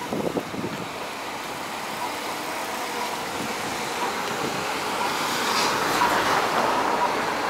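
Cars driving over a level crossing: engine and tyre noise that swells as a car passes close about two-thirds of the way through.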